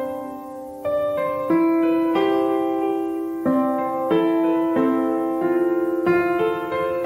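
Background music: a piano playing a calm piece, a new note or chord struck about every half second to a second.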